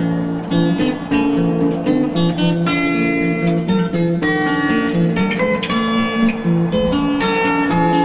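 Background music on acoustic guitar, a steady stream of picked and strummed notes.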